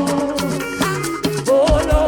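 Gospel praise band music with no lead vocal: rapid low drum strokes that slide down in pitch, a shaker rattling and a held tone.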